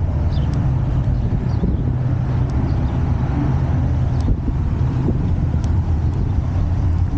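Steady low rumble of wind on the microphone mixed with road noise while riding an electric scooter.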